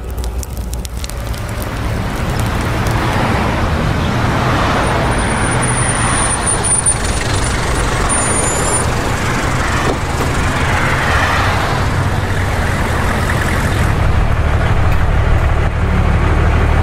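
City bus driving in traffic: a steady engine rumble and road noise, with a thin high whine for a few seconds midway.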